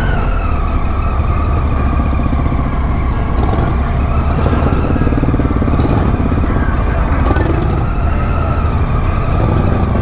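Triumph Tiger 800's three-cylinder engine running at low speed as the motorcycle rolls slowly, heard from on the bike: a steady low pulsing hum with a wavering whine above it.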